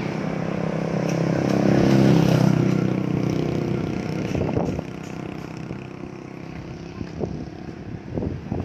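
A motor vehicle's engine running nearby, loudest about two seconds in and then fading away, with a few faint knocks later on.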